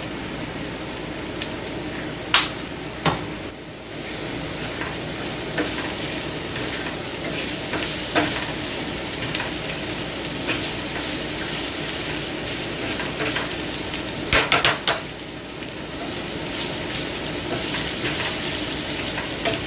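Vegetables stir-frying in a pan with a steady sizzle, while a utensil stirs and knocks against the pan every few seconds; a quick run of four knocks comes about fourteen seconds in.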